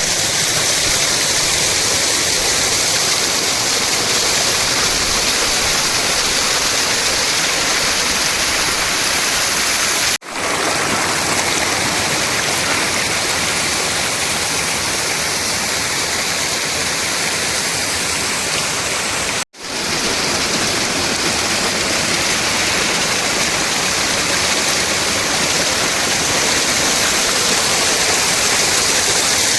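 Waterfall, water falling and rushing in a loud, steady hiss, cut off to silence for an instant twice, about a third and two thirds of the way through.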